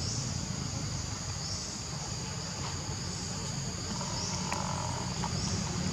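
A chorus of forest insects: a steady high-pitched drone that swells about every second and a half, over a low steady hum.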